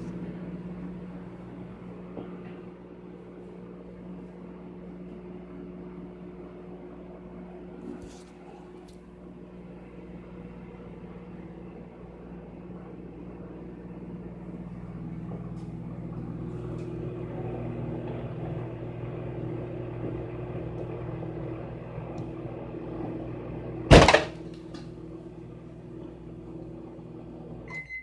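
Microwave oven running with a steady hum while heating a whole egg; about four seconds before the end the egg bursts inside it with a single sharp, loud pop.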